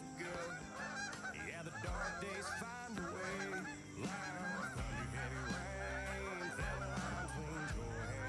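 A big flock of geese honking in flight, many calls overlapping. The flock is coming in low to land in the field.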